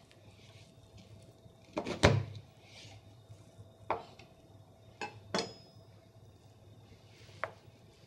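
A chef's knife knocking on a cutting board while a raw chicken is cut apart through the leg and thigh joint: a double knock about two seconds in is the loudest, followed by a few lighter single knocks.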